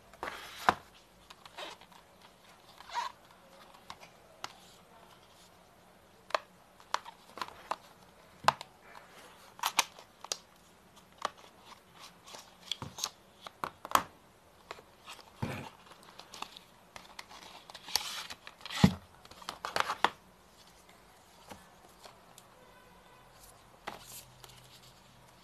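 Hands handling a smartphone's cardboard retail box and its paper inserts: irregular taps, scrapes, slides and paper rustles, with a cluster of louder handling noises about two thirds of the way through.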